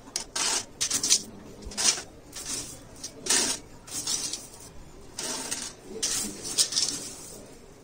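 Small gravel chips pouring in a dozen or so short batches onto the bottom of an empty glass aquarium, the stones clattering and rattling against the glass and against each other.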